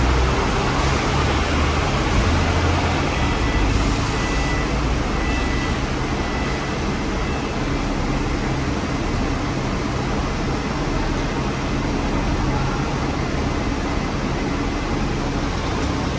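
Double-decker bus heard from inside on the upper deck: a steady engine rumble under constant road and cabin noise, the low rumble a little stronger in the first few seconds.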